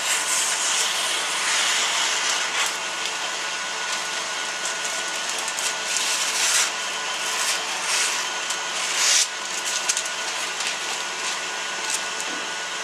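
A KitchenAid stand mixer runs steadily, whipping egg whites toward stiff peaks. Over it, parchment paper rustles and crinkles in several short bursts as it is cut with scissors and pressed into a metal sheet pan.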